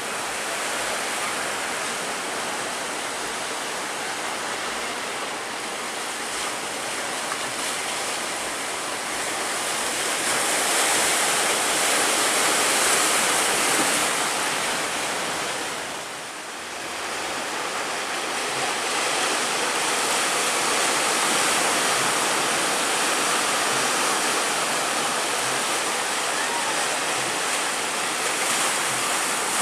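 Big ocean waves breaking in surf, a continuous rushing noise that swells a third of the way in, dips briefly just past the middle, then swells again.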